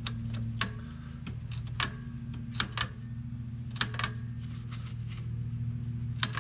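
Hand ratchet clicking in irregular strokes as wheel-bearing mounting bolts are tightened, over a steady low hum.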